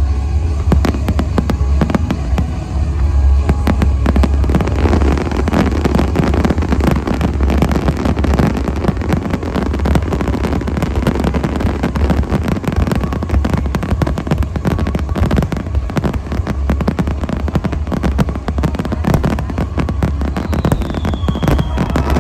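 Fireworks display: a dense, continuous run of shell bursts, bangs and crackling, with a short falling whistle near the end.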